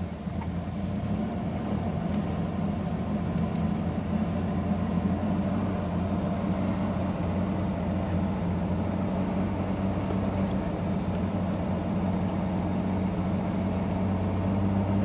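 2000 Chevy Blazer's 4.3-litre V6 running steadily at raised revs with a miss, a misfire that the last scan put on cylinder 4. The owner suspects a bad injector or a kinked injector line.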